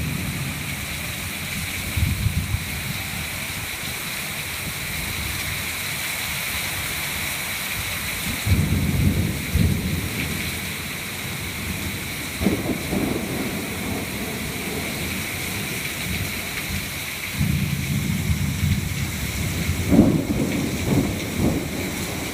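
Thunderstorm: steady heavy rain hiss, with rolls of thunder rumbling about a third of the way in and again a little past the middle, and a longer rumble with sharper cracks over the last few seconds.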